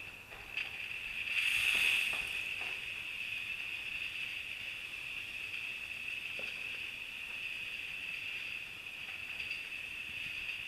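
Fleischmann BR 38 N gauge model steam locomotive running along the track: a steady high motor whine with wheel hiss. It is loudest about one and a half to two seconds in, then stays even as the train runs on.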